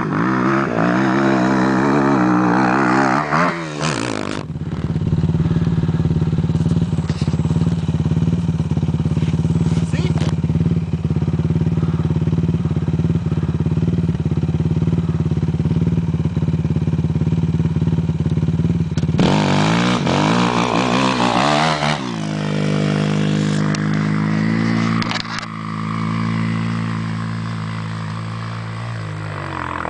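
Suzuki LTR 450 quad's single-cylinder four-stroke engine running, the revs wavering then dropping about four seconds in. It holds a steady note for a long stretch, revs up again, then falls back and settles at a lower, steady speed near the end.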